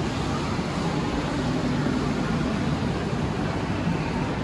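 Steady ambient hubbub of a busy shopping-mall food court: many people's indistinct chatter and general indoor crowd noise.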